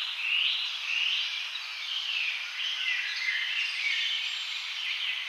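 A run of short, high chirps, about one or two a second, from an edited-in nature ambience track with the low end cut away; it starts and stops abruptly.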